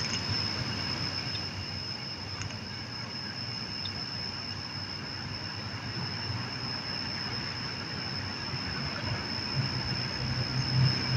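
A steady, unbroken high-pitched drone of night insects over a faint hiss.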